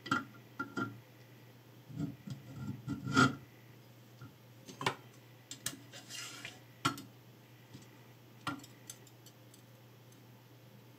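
A scattered run of light clicks and knocks of hard parts being handled, the loudest about three seconds in, dying away after about nine seconds: a Fino Edge knife-sharpening jig being adjusted and its angle checked.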